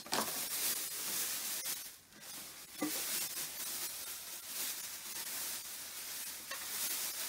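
Clear plastic bag rustling and crinkling as the slow cooker's body is pulled out of it, with a brief knock just before three seconds in.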